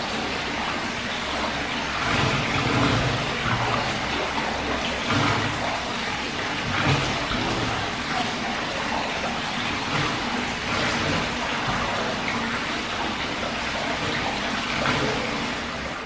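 Hot-spring water pouring steadily into an onsen bath: a continuous splashing rush of water.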